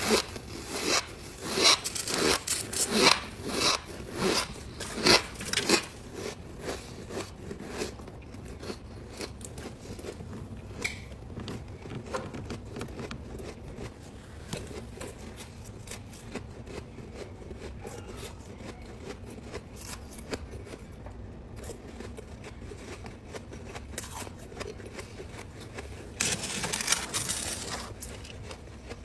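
Squeaky ice being bitten and chewed close to the microphone: loud crunching for the first several seconds, then quieter, softer chewing, with loud crunching again near the end.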